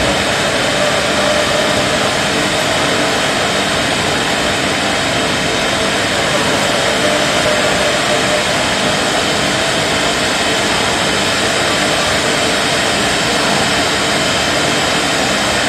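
Machinery of a jam production line running steadily: a continuous mechanical whir with a faint steady hum.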